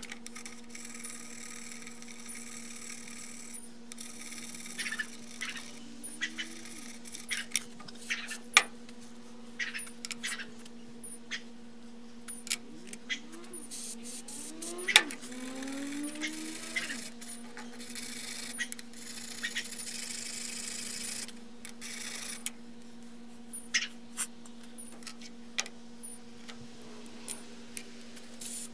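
Small metal parts of a Leatherman multi-tool clicking, knocking and scraping as it is taken apart and cleaned, with stretches of rubbing hiss and a few short squeaks, over a steady low hum.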